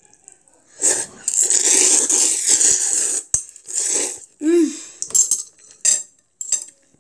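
Instant noodles in black-bean sauce slurped off metal chopsticks: one long slurp about a second in, then a shorter one, with sharp clicks of the metal chopsticks against the ceramic bowl.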